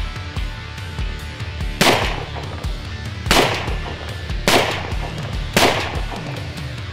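Four shots from a Remington Model 8A semi-automatic rifle in .35 Remington, fired a little over a second apart. Background rock music with electric guitar and a steady beat plays under the shots.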